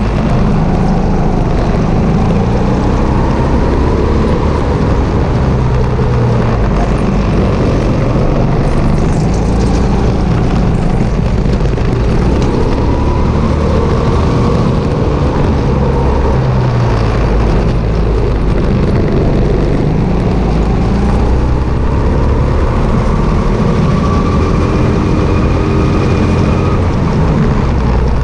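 Sodi RT8 go-kart's petrol engine running hard, its pitch rising and falling again and again as it accelerates and backs off, heard close up from a camera mounted on the kart itself.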